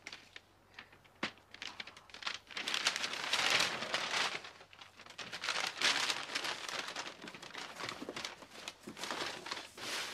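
Brown wrapping paper crinkling and tearing as a parcel is unwrapped by hand, a dense crackle that starts about two seconds in and swells twice.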